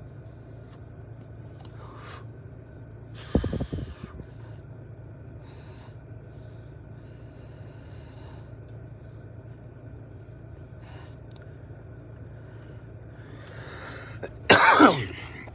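A man coughing over a steady low background hum: a short cough about three and a half seconds in, then a louder, sneeze-like cough whose voice falls in pitch near the end.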